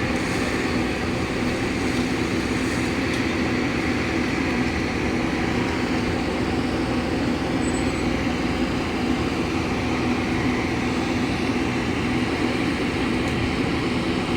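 Heavy machinery running steadily, a constant low mechanical hum and rumble with no breaks or changes.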